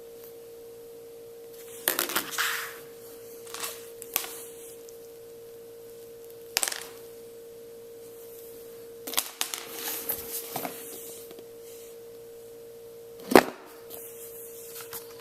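A phone box and its packaging being handled: scattered clicks, rustles and knocks, a cluster of them in the middle and the sharpest click near the end. A steady hum-like tone runs underneath.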